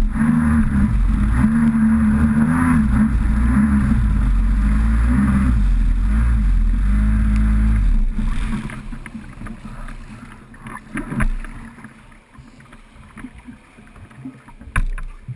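Kawasaki SXR800 stand-up jet ski's two-stroke twin running hard, its note wavering as the craft skims and bounces over the water. About eight seconds in the engine note falls away as the throttle comes off, leaving water splashing against the hull and a few knocks.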